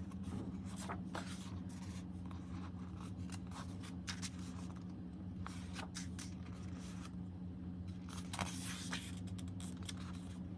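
Pages of a paperback coloring book being turned by hand: a string of short paper rustles and flicks, over a steady low hum.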